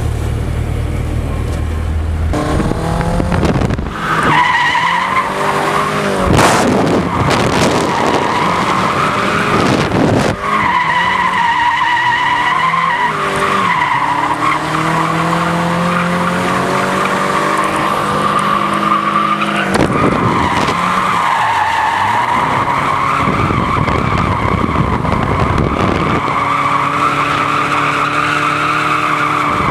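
Drift car sliding on tarmac: a long tyre squeal that comes in about four seconds in and holds with a few short breaks, over the engine revving up and down as the throttle is worked. Heard from inside the car.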